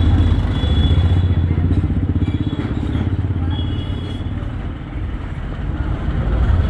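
TVS Apache RTR 180 motorcycle's single-cylinder engine running steadily under way, a low pulsing drone with road noise. It eases off a little midway and builds again near the end.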